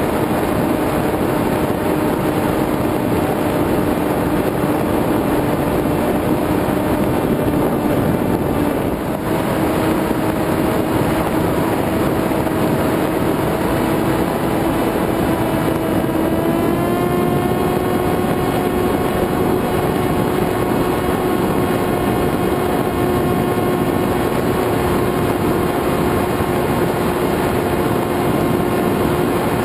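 Electric motor and propeller of an FPV model aircraft heard from its onboard camera: a steady whine over rushing wind, dipping briefly about nine seconds in, then stepping up to a higher pitch a little past halfway as the throttle is raised, and holding there.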